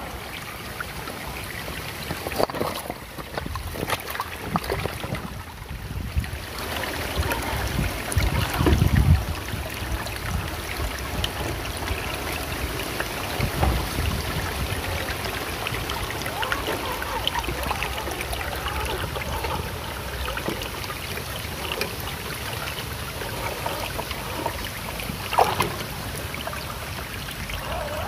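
Shallow muddy creek water splashing and trickling around the tyres of an RC crawler as it drives through, with a few low bumps along the way.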